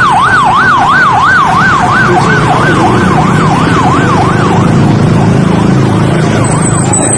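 A bus's 'telolet' horn sounding a fast siren-like wail that sweeps up and down about two and a half times a second, over a low engine rumble. The wail fades out after about five seconds.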